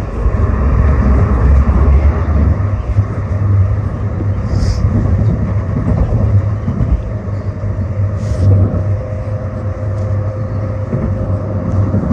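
Calgary CTrain light-rail car running on the track, a steady low rumble with a faint steady tone, heard from on board. Two short hisses come about four and a half and eight seconds in.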